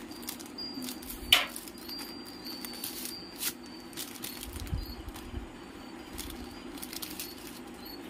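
Scissors snipping and clear plastic wrapping crinkling as a metal I/O shield is cut free of its bag, with a sharp snip about a second in and another about halfway through. A steady low hum sits underneath.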